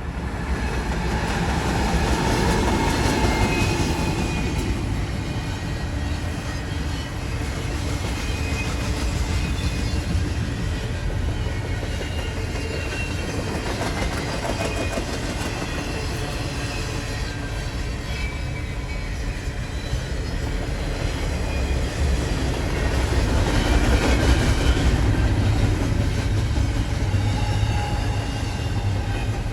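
Freight train of well cars rolling past, a steady rumble of wheels on rail with faint high squeals now and then.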